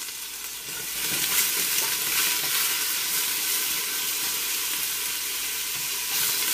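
Onion, carrot and beef scraps sizzling in hot oil in a stainless steel stockpot as they brown, the sizzle growing louder about a second in. A spoon stirs through them in the pot.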